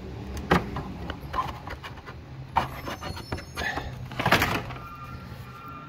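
Plastic clicks, knocks and a short scrape as the engine air filter and its plastic housing are handled and pulled out, the loudest burst about four seconds in.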